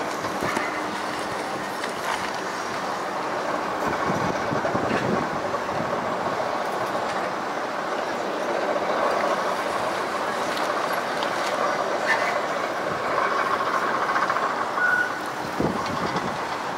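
Volvo tracked excavator's diesel engine and hydraulics running steadily while its demolition grapple works, with a few scattered knocks.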